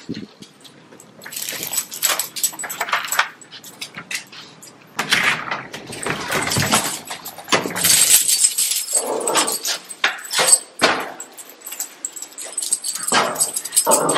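Cavalier King Charles spaniels whining and whimpering in short, uneven bursts, with their collar tags and leash clips jingling.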